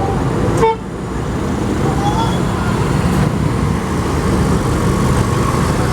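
Road traffic passing close by: a steady engine rumble with tyre and road noise, dipping suddenly in level just under a second in.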